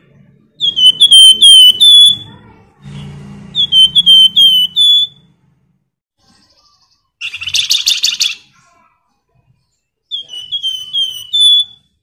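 Caged flamboyan songbird singing in three loud phrases. Each phrase is a quick run of about five bent, chirping notes ending on a longer held note. About midway there is a single harsher, denser call.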